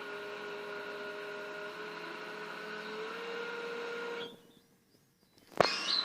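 Digging machine's engine and hydraulics running with a steady whine that steps up a little in pitch about three seconds in, then cut off abruptly about four seconds in. A sharp click and a short louder noise follow near the end.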